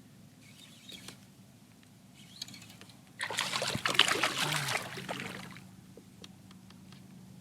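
Water splashing loudly against a kayak for a couple of seconds, starting about three seconds in, with faint ticks and trickles before it.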